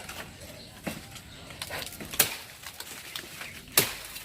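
Three sharp knocks: a lighter one about a second in, then two louder ones about two seconds in and near the end.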